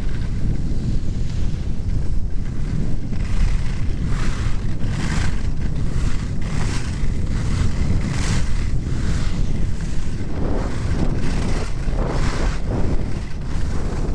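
Wind rushing over the microphone of a camera carried while skiing downhill, a steady low rumble, with skis scraping across packed snow in swells about once a second.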